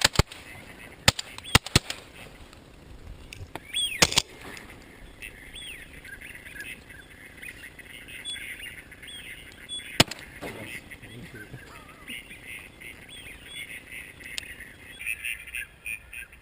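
Ducks quacking and calling, many short overlapping calls that grow denser in the second half. A few sharp clicks come in the first two seconds, with another near four seconds and one about ten seconds in.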